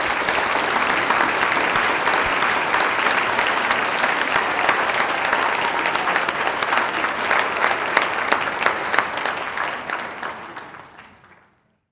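A large audience applauding, a dense steady clapping that fades out near the end.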